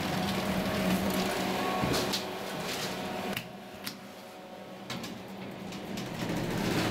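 1976 KONE hydraulic elevator's machinery: a steady mechanical hum that stops about two seconds in, followed by several sharp clicks.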